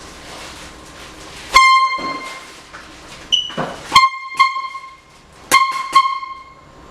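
Handheld canned air horn blasting in short bursts: one loud blast about a second and a half in, then two pairs of quick blasts.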